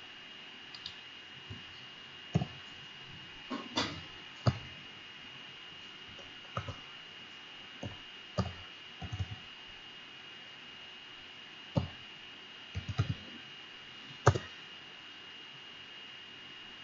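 Computer keyboard keys clicking in scattered single taps and short quick runs, over a faint steady high whine.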